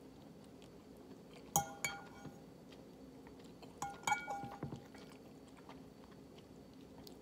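Metal fork clinking against a ceramic bowl while twirling noodles. There are two clinks about a second and a half in, then a cluster of clinks around four seconds, each ringing briefly.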